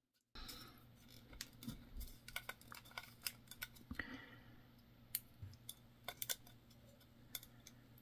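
Faint, scattered clicks and taps of small parts being handled: a metal-shelled 6-pin DIN connector and its bolts knocking against each other and against the soldering station's plastic front panel. A low steady hum runs underneath.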